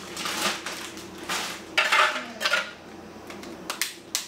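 Plastic zip bags rustling and containers and utensils clattering as raw dog-food portions are packed by hand at a sink. Irregular rustling bursts, with a few sharp clicks near the end.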